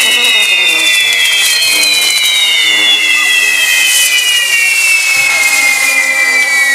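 Whistling fireworks on a castillo fireworks tower: several whistles sound together and slide slowly down in pitch, over light crackling.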